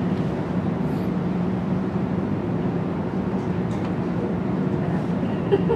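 Steady low machine hum, even and unbroken.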